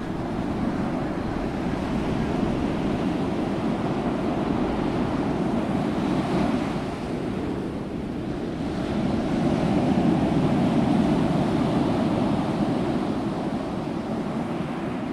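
Ocean waves and wind as a steady, rushing wash that swells and eases, louder in the middle, and begins to fade out near the end.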